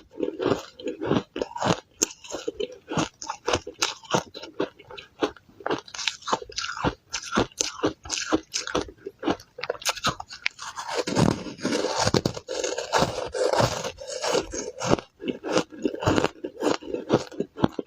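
Close-up crunching of ice being bitten and chewed: a rapid, uneven run of sharp crunches, growing denser about eleven seconds in.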